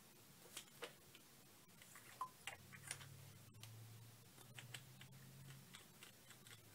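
Near silence with faint, irregular small clicks and ticks from handling a vape tank and mod, with a faint low hum for a few seconds in the middle.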